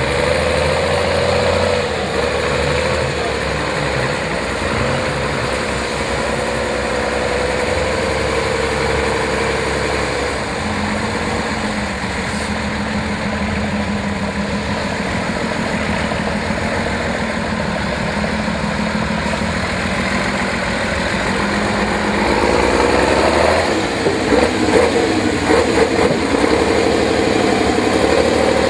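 Praga V3S trial truck's engine working under load as the truck climbs a steep sandy slope, its pitch wavering with the throttle. It settles to a lower, steadier note for a while, then revs up and down in quick bursts near the end.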